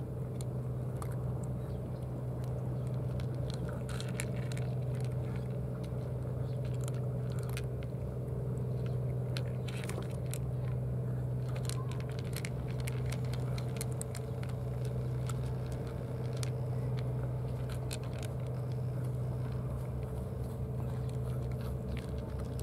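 Cats crunching dry kibble from plastic dishes: many short, crisp crunches and clicks, over a steady low hum.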